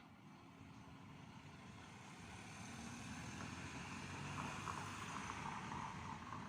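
A vehicle passing by: a broad, faint noise that grows louder to a peak about four to five seconds in, then starts to fade.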